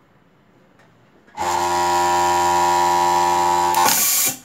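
Voltex H8 industrial overlock sewing machine starting abruptly and sewing at full speed for about two and a half seconds with a steady high whine. Near the end comes a short hiss of compressed air as the air thread cutter fires, then it stops sharply.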